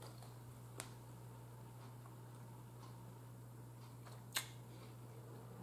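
Quiet room tone with a steady low hum, broken by two short clicks: a faint one about a second in and a sharper one about four seconds in.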